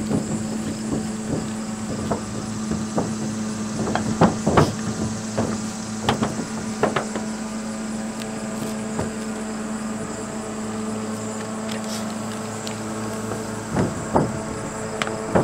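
Scattered sharp knocks of a cap hammer stapling synthetic roof underlayment, a few of them louder, over a steady low hum that stops near the end.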